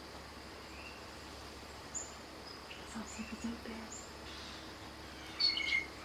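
A recorded blue jay call played through a smartphone's small speaker: one short, harsh call near the end, with a few faint high chirps a couple of seconds earlier.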